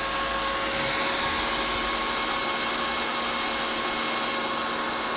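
Resanta SAI-280 welding inverter running after power-up, its cooling fan blowing steadily with a faint steady whine under it. The unit has started normally on its newly replaced power transistors.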